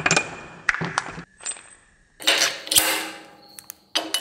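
Steel fixture-table clamping bolts clinking together as they are handled and set into the table. A few sharp metallic clicks give way to a louder rattle about two seconds in, with more clicks near the end.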